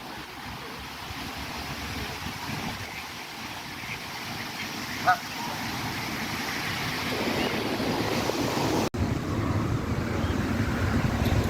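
Wind buffeting the microphone over a steady outdoor rumble. There is one short bird call about five seconds in, and the sound drops out for an instant near nine seconds.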